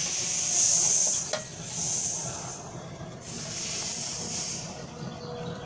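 A screwdriver turning a long bolt into the metal housing of an air-conditioner outdoor unit to mount a new capacitor. The bolt makes a high rasping scrape on each turn, four or so strokes, with a single sharp click about a third of the way in.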